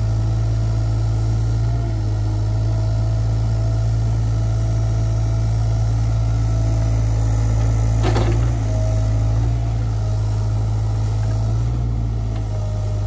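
SANY SY35U mini excavator's diesel engine running steadily under working load, a thin whine wavering slightly over the engine drone as the boom and bucket move dirt. A short clunk about eight seconds in.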